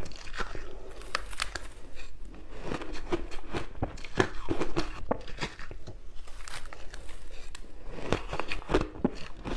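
Crushed ice being bitten and chewed: a close, irregular run of crunches and crackles.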